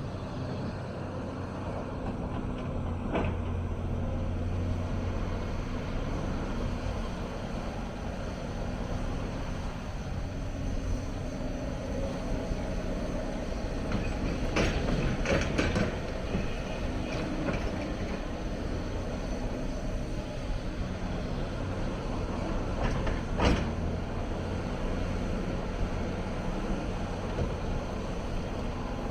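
Hyundai 290 hydraulic excavator's diesel engine running steadily under working load. A knock comes a few seconds in, a cluster of metallic clanks and clatter comes about halfway through, and one sharp knock comes near the end.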